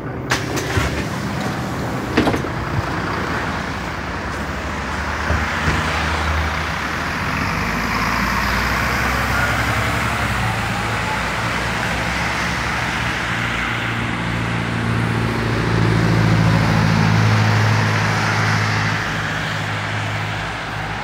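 Mercedes-Benz Citaro diesel city bus pulling away and accelerating, its engine note building to its loudest in the latter half. A faint rising whine comes through partway in, and a few sharp knocks sound in the first few seconds.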